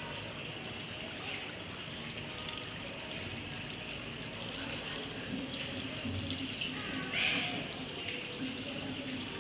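Water running steadily from a tap while hands are washed under it.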